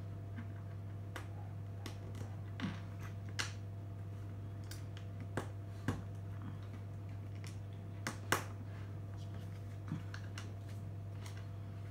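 Small plastic building bricks clicking and tapping as they are picked up, set down on a hard tabletop and pressed together, in irregular single clicks. A steady low hum runs underneath.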